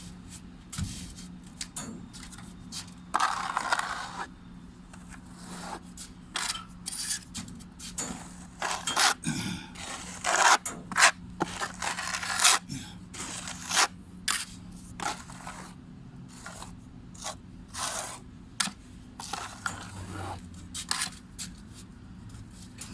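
A hand tool scraping a hard surface in many short, irregular strokes, a few of them louder, over a faint steady low hum.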